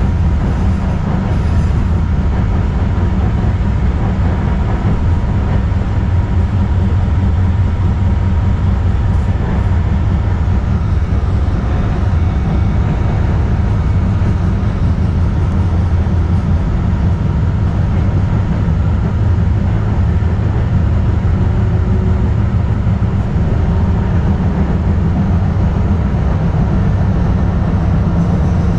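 Kinki Sharyo electric light rail car of the DART Orange Line running, heard from inside as a steady, even rumble of wheels on rail and running gear, with a faint steady whine.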